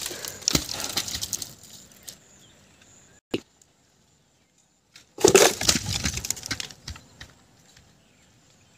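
Palmyra palm fruit bunches cut from the treetop crashing onto dry ground and dead fronds: one crash at the start and another about five seconds in, each trailing off in a second or two of rattling, with a single sharp knock between them.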